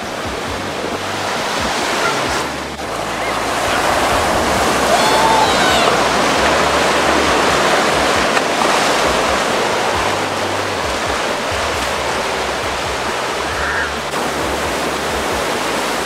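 Ocean surf breaking and washing into the shallows, a steady rush of whitewater that swells a little louder about a quarter of the way in.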